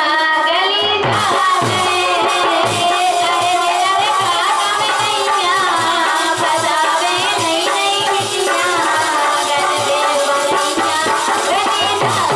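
Live Bundeli folk song: a woman singing through a microphone over harmonium and a steady run of drum beats.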